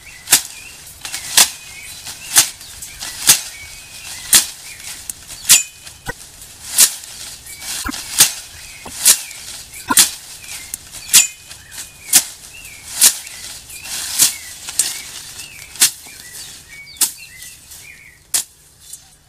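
Machete slashing through weeds and grass in steady strokes, about one a second, with birds chirping faintly behind.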